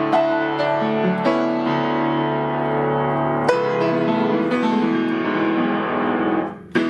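Solo piano playing sustained chords under a melody. Shortly before the end the sound dies away briefly, then a new chord is struck sharply.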